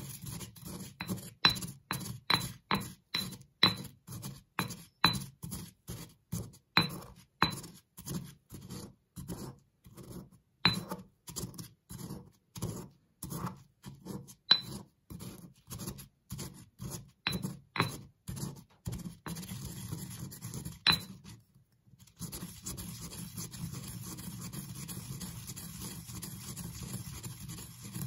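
Stone pestle pounding fish crackers in a stone mortar, about two crunching strikes a second, some with a brief high ring off the stone. After a short pause near the end, it turns to a steady scraping as the pestle grinds the crumbs round the bowl.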